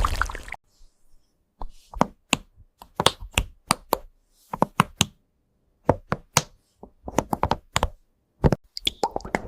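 Keyboard typing: irregular clusters of sharp key clicks and clacks with short pauses between them, after a noisy rush that cuts off about half a second in.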